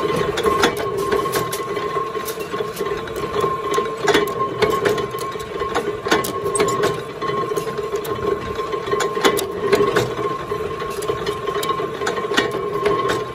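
Power press running with a steady motor hum while its punch and die cut alligator-clip blanks from sheet metal strip, with sharp metallic clicks and clacks at irregular intervals from the strokes and the strip being shifted on the die.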